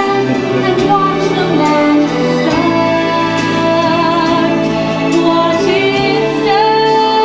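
Orchestral show-tune ballad with long held chords and a woman singing over it.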